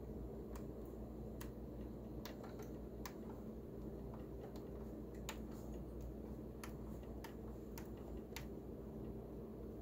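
Technics SL-6 turntable's program-select push buttons clicking as they are pressed one after another: about a dozen sharp, irregularly spaced clicks over a low steady hum.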